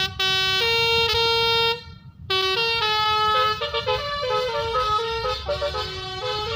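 Bus 'telolet basuri' musical horn playing a tune: two long held notes, a short break about two seconds in, then a quicker run of changing notes over the rumble of the engine.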